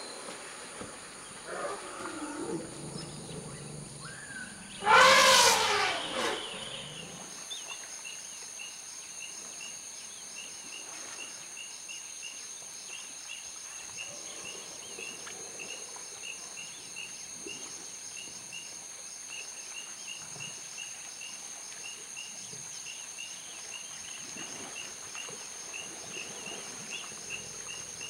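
Forest elephants calling while jousting: a low call about two seconds in, then a loud roar about five seconds in. After that, a high chirp repeats about twice a second with a steady high hum over quiet surroundings.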